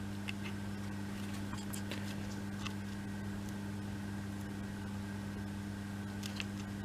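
Steady low electrical hum, with faint scattered light clicks and taps as small laser-cut wooden model parts are handled and pressed into place.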